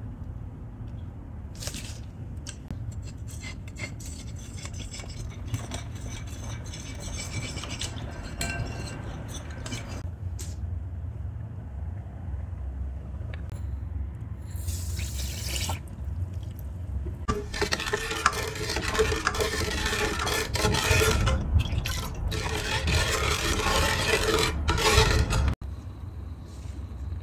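Wire whisk beating custard powder into milk in a ceramic bowl, with quick light clinks and scraping against the bowl. Later, sugar is poured into an aluminium pot of milk, then a longer, louder stretch of mixing and liquid sounds comes from the pot and cuts off sharply near the end.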